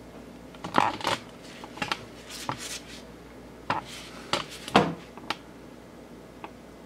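Handling noise from a piping bag being gripped and squeezed to pipe cream cheese onto a meatball: a string of short rustles and clicks, loudest a little under five seconds in.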